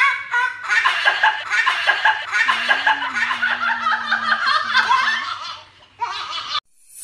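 A man and a woman laughing hard together, dying down about five and a half seconds in, then a short last burst of laughter that cuts off suddenly.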